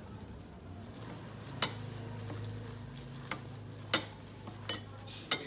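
A plastic-gloved hand dredging chicken through flour and breading in bowls: a soft rustle of glove and flour, with about five sharp clicks as the hand or the pieces knock against the ceramic and glass bowls. A low, steady hum runs underneath.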